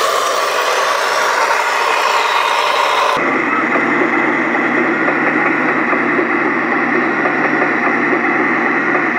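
Radio-controlled model tanks running: a steady mechanical engine-like drone with a high whine. The sound changes abruptly about three seconds in.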